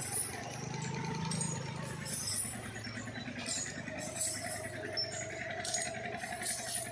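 Metal jingling and clinking in short, irregular bursts over a steady low hum.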